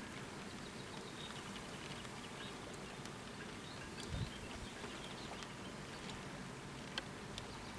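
Steady hiss of light rain and wind over open water, with faint bird chirps. A brief low gust of wind buffets the microphone about four seconds in.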